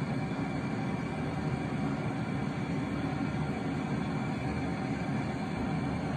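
Gas brazing torch flame burning with a steady roar while refrigerator copper lines are soldered.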